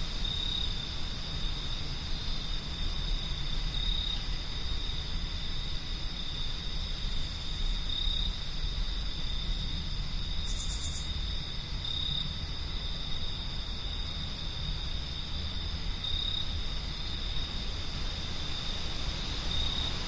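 Night ambience: a low steady wind rumble under continuous cricket trilling, with a brighter chirp repeating about every four seconds and a short high buzz about halfway through.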